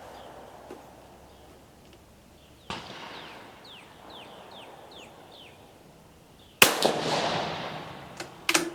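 Shot from a 6.5 mm Italian Vetterli 1870/87/15 bolt-action rifle with a light cast-bullet load: a sharp report with a long echo tailing off about two-thirds of the way in. A few quick metallic clicks of the bolt follow near the end. Earlier there is a fainter bang, and between the two a bird gives a run of short falling chirps.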